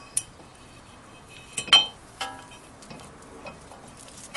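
A few sharp metallic clinks as the Integra's steel brake caliper bracket and its 17 mm bolts are handled and fitted into place, the loudest about two seconds in.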